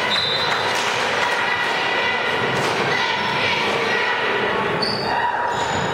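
Basketball game noise in a gym: a ball bouncing and thudding on the hardwood court, with crowd chatter in the hall and a few short high squeaks, the clearest about five seconds in.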